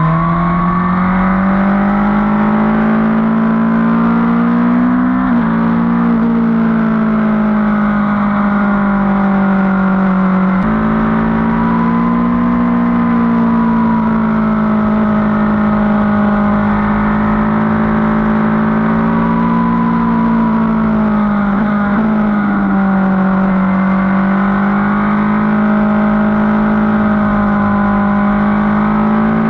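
Motorcycle engine running under way at a steady, high level, its note rising and falling slowly with a few abrupt jumps in pitch.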